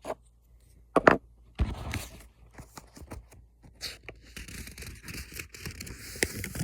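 Hands handling gun accessories and their packaging: a sharp knock about a second in, then scraping and rustling with many small clicks.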